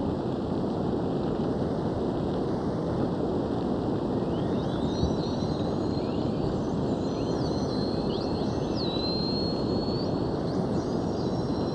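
Steady wash of noise from a boat under way, its motor and the water running together. Faint thin whistling tones step and slide in pitch from about four seconds in.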